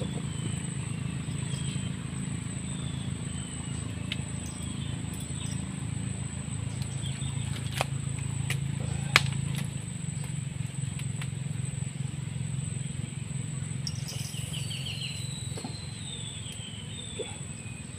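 Birds calling in short, falling whistled notes, repeated in runs early on and again with a quick trill near the end, over a steady thin high whine and a low steady hum. Two sharp clicks come about eight and nine seconds in.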